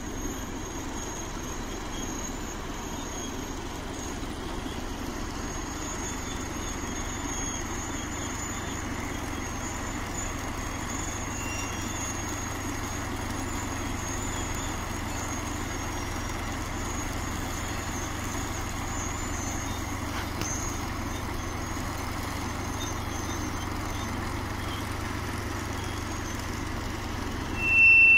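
SM-2M snow-removal train and its diesel shunting locomotive moving along the tracks: a steady rumble of engine and running gear. Near the end a loud, high-pitched tone sounds for about a second.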